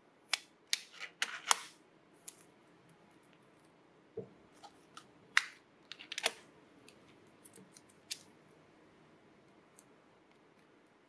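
Handling of a small hard plastic case of 2 mm pencil leads and its paper seal strip being peeled off: a scatter of sharp clicks, taps and light crinkles, busiest in the first two seconds and again around five to six seconds in, with one duller knock about four seconds in.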